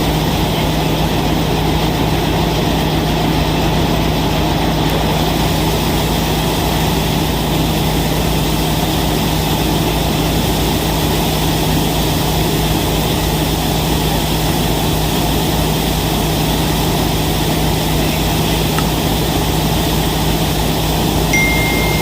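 Vikas 315 tractor-mounted combine harvester running steadily on a Swaraj 963 tractor's diesel engine, with a constant low hum under a broad, even mechanical roar.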